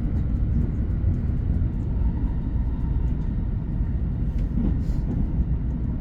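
Train running on the rails: a steady low rumble with faint light ticks on top.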